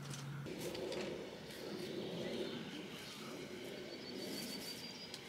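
Soft, faint scrapes of a hand vegetable peeler stripping white asparagus, over quiet outdoor ambience, with a thin high bird whistle near the end.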